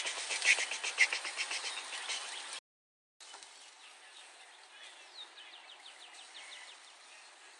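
A rapid, loud chirping trill of about ten chirps a second for the first two seconds. The sound drops out briefly, then fainter trills and a single falling whistle follow over a steady outdoor hiss.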